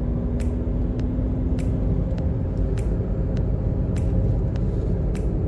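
Steady low rumble of a motor vehicle running, with a faint steady hum over it and light clicks now and then.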